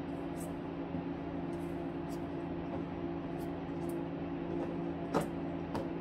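Plastic net pots being set down on a plastic tote lid: a few light clicks and taps, the loudest a little past five seconds in, over a steady low hum.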